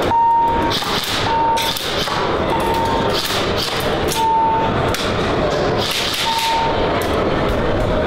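Airsoft guns firing on a test range: scattered sharp shots and thuds over a constant loud din of a busy hall. A short high beep sounds about five times at irregular gaps.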